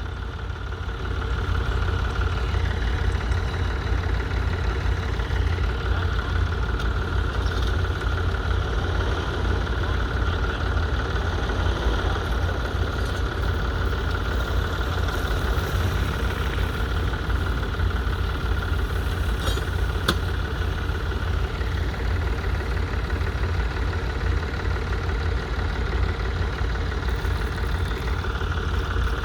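Ford 4000 tractor engine running steadily with a deep, even rumble, with a single brief click about two-thirds of the way through.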